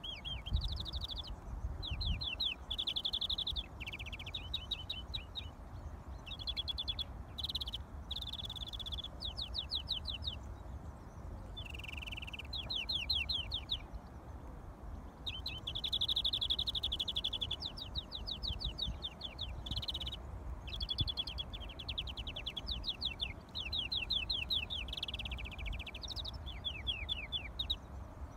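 Caged European greenfinch singing almost without pause: runs of fast rattling trills alternating with drawn-out wheezy buzzing notes. A low rumble of wind on the microphone lies underneath.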